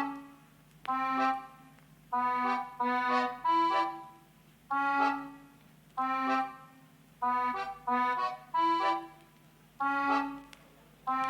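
Background music: short, bright melodic phrases repeating about once a second, with brief gaps between them.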